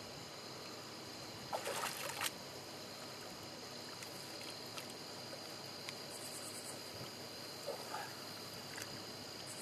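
Steady insect chorus, a constant high chirring, with a short cluster of scuffing and knocking noises about two seconds in and a few faint ticks later.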